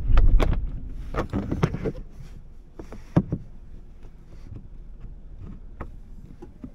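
A car's low road and engine rumble dies away in the first couple of seconds as it pulls in and stops. Scattered sharp clicks and knocks follow inside the cabin.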